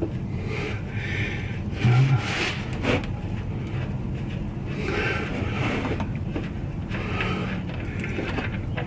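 Used motor oil draining from the oil pan of a 1964 Chevy Impala with the drain plug out, splashing unevenly into a catch pan over a steady low hum.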